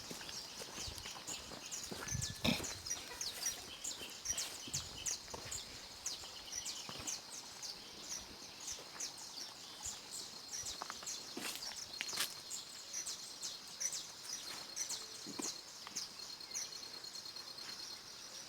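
Small birds chirping steadily in a dense chorus of short, high chirps, with a thin, even high trill joining in the second half. There are a few soft knocks along the way.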